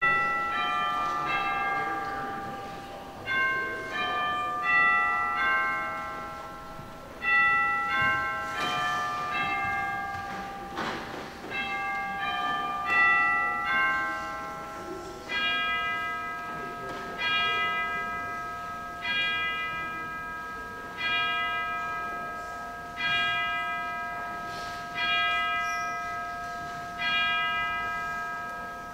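Church bells ringing: a melody of struck, decaying notes for about the first half, then a single bell tolling the same note about every two seconds, like a clock striking the hour before the service begins.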